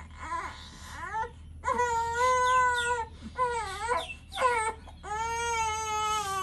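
A baby girl crying in a series of long, high-pitched cries with short breaks between, the loudest in the second half, as her ears are pierced.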